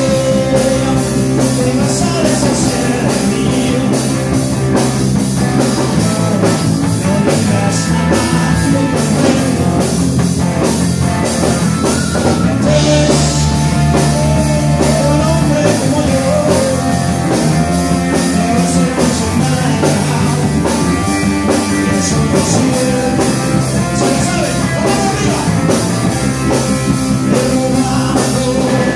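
Live rock band playing: a man singing into a microphone over electric guitar, electric bass and a drum kit, loud and steady.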